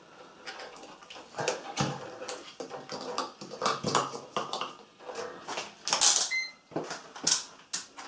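Handling of a multimeter, its test leads and a plastic washing-machine pressure switch: scattered light clicks, knocks and rustles. A short electronic beep from the multimeter about six seconds in.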